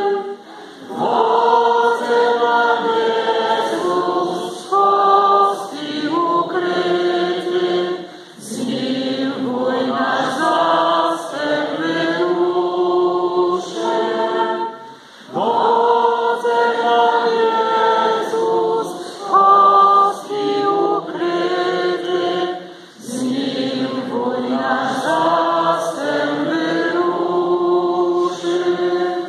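A church congregation singing a hymn together, in phrases of several seconds with short pauses for breath between them, in a reverberant church.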